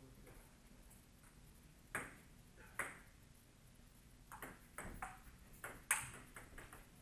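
Table tennis ball clicking off the paddles and the table in a rally: a couple of single pocks about two seconds in, then a quicker run of clicks with the loudest hit near the end.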